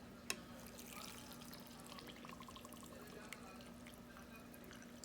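Coffee being poured into a mug: a faint trickle of liquid with small drips, after one sharp click near the start.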